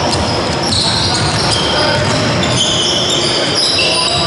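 Basketball play on a sports-hall court: sneakers squeaking on the wooden floor in many short, high squeaks, with a basketball being bounced.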